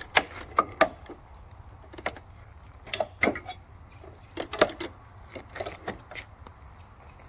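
Irregular knocks and clunks, a dozen or so, as a packing frame is wrestled loose by hand.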